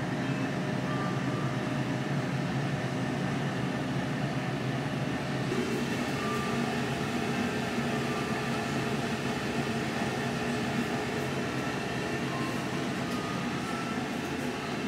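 Steady mechanical hum and hiss of refrigerated drink vending machines running their cooling units, the drone changing slightly about five and a half seconds in.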